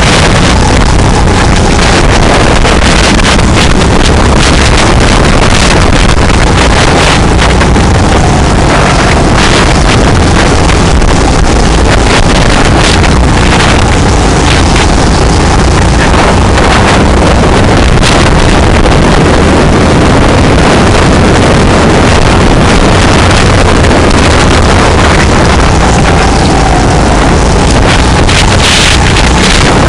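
Go-kart engine running at speed, heard loud and distorted from onboard, its pitch rising and falling through the laps, with wind rushing over the microphone.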